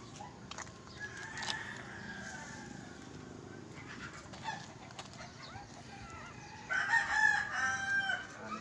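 A rooster crowing once, loud, about seven seconds in, in two drawn-out parts. Before it, faint scattered knocks and rustling.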